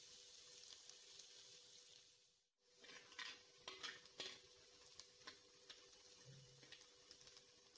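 Chopped onions and green chillies frying in oil in a clay pot, a faint steady sizzle as they cook towards light golden. A metal spatula scrapes and clicks against the pot several times in the middle, and the sizzle breaks off briefly about a third of the way in.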